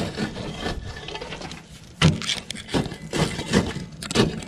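A shovel jabbing into burning charred wood in a metal kiln, the embers crunching and breaking. Fairly quiet for the first two seconds, then a run of sharp, irregular crunches.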